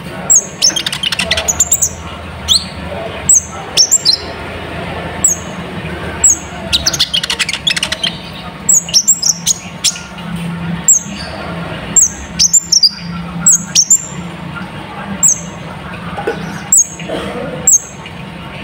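Kolibri ninja sunbird (Van Hasselt's sunbird) calling: short, high, sharply falling chirps repeated about once a second, broken by several bursts of rapid twittering song.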